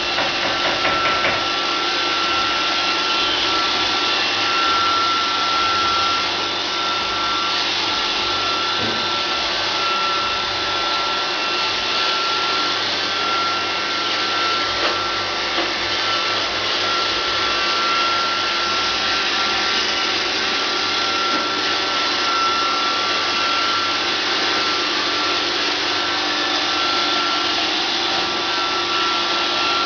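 Roomba 560 Pet robot vacuum running steadily, its motors whirring with a constant high whine.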